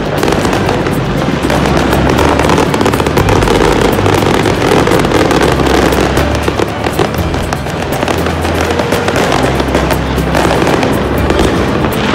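Fireworks and firecrackers going off, a dense stream of sharp cracks and bangs, over loud music with a heavy bass line.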